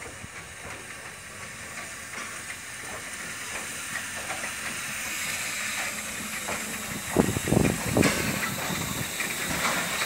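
Small steam tank engine rolling slowly up to the camera, its steam hissing and growing louder as it approaches. A few heavier low thumps come about seven to eight seconds in.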